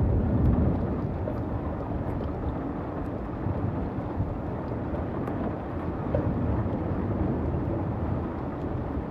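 Heavy night rainstorm: steady rushing rain and wind with a low rumble, heaviest in the first second.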